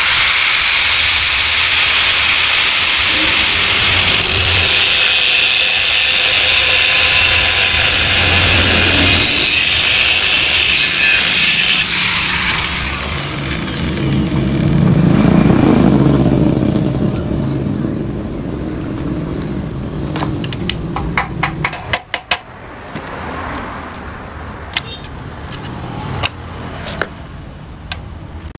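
Power tool grinding into the steel of a motorcycle exhaust muffler being gutted: a loud steady hiss that eases off after about twelve seconds. From about twenty seconds in, a run of short, sharp knocks on metal, several in quick clusters.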